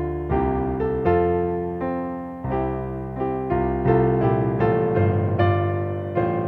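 Solo piano music: gentle chords and notes struck one after another, each left to ring and fade.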